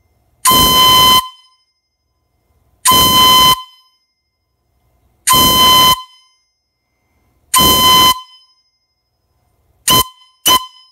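A whistle sounding four long blasts about two and a half seconds apart, then two short quick blasts near the end. The long blasts each count a decade and the short ones a year, in a count of the owner's age.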